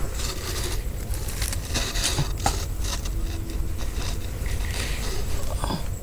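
Dry leaf litter and twigs rustling and crackling in short, scattered bursts, busiest about two seconds in and again near the end.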